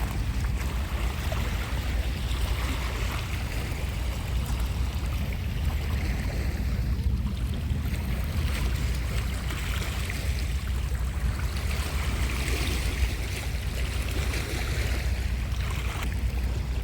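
Sea surf washing against the shore, its hiss swelling and fading every few seconds, over a steady low rumble of wind on the microphone.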